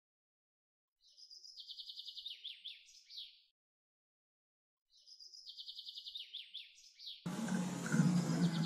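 A small songbird's song phrase, sung twice the same way: a high opening note, a fast even trill, then a few quick slurred notes. About seven seconds in, a steady outdoor background with a low hum and faint chirps cuts in suddenly.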